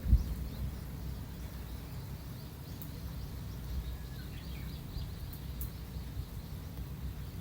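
Beach ambience: a steady low rumble of sea and wind with small birds chirping faintly and high-pitched throughout. A single thump just after the start is the loudest sound.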